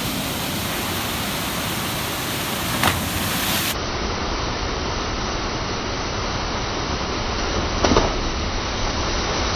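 Waterfall's steady rush of falling water, with two brief sharp clicks, about three and eight seconds in.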